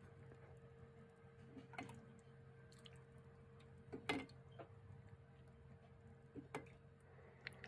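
Near silence: a low, steady room hum with about four faint clicks or taps scattered through it, the loudest about four seconds in.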